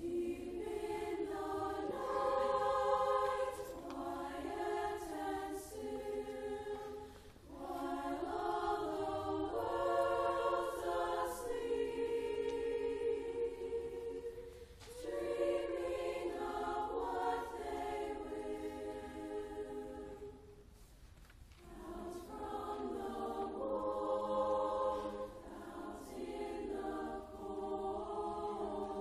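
Women's choir of upper voices singing sustained chords in phrases, with short breaks between phrases about seven seconds in and again about twenty-one seconds in.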